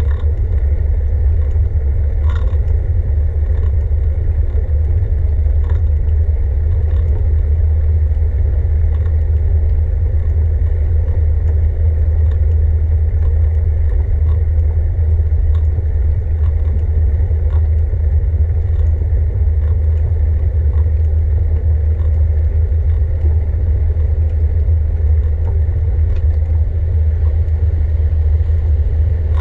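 Steady low rumble of a moving bicycle ride: wind buffeting the microphone together with tyre and road noise. Light scattered clicks and rattles from the bike run through it.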